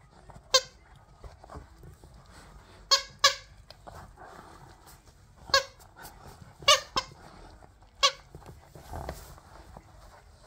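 Squeaker inside a plush duck toy squeaking about seven times as a Doberman puppy bites down on it, short squeaks, twice in quick pairs, with soft chewing and mouthing in between.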